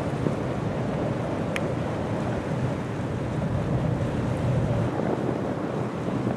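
Steady wind buffeting the microphone over a low, even rumble, with a brief high-pitched squeak about one and a half seconds in.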